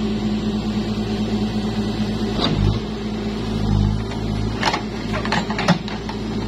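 Case backhoe loader's diesel engine running steadily under hydraulic load as the backhoe digs, with a few sharp clanks near the end.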